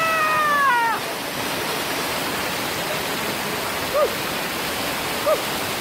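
Heavy rain pouring down, a steady hiss, picked up on a wet phone's microphone. It opens with a man's long yell lasting about a second, and two brief faint blips come near the end.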